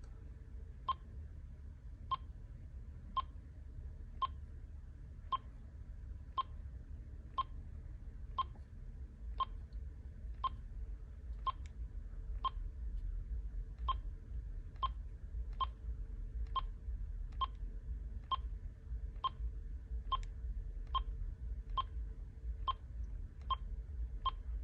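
Cordless phone handset key beeps, one short beep about every second, as a navigation key is pressed repeatedly to scroll through the pictures menu, over a faint low rumble.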